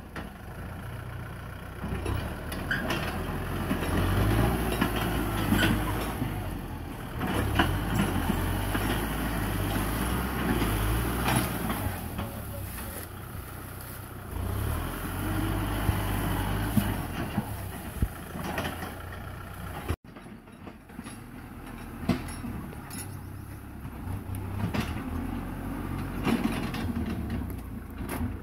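Kubota M6040SU tractor's four-cylinder diesel engine running under load as it drags a disc plough through dry scrub, its note rising and falling, with scattered sharp cracks and snaps over the engine.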